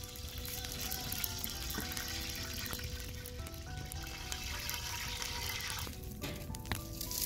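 Background music of held melodic notes over hot cooking oil sizzling in a wide pan set over a wood fire. The sizzling drops away about six seconds in, leaving the music and a few light clicks.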